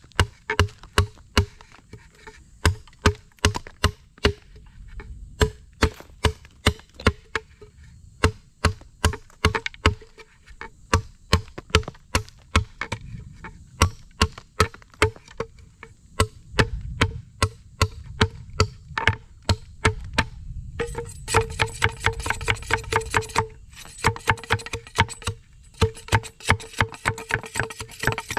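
A blade chopping repeatedly into a piece of wood being shaped into a cup, about two to three sharp strokes a second, each with the same short ringing note. The strokes come faster and closer together near the end.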